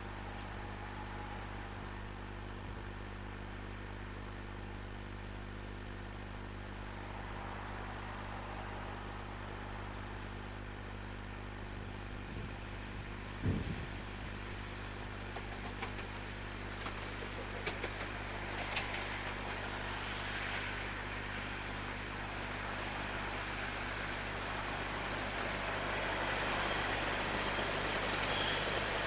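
Class 37 diesel locomotive, with an English Electric V12 engine, approaching under power with its passenger coaches. Its engine and wheel noise grow steadily louder over the second half. A steady low hum lies underneath throughout, and there is a single thump about halfway through.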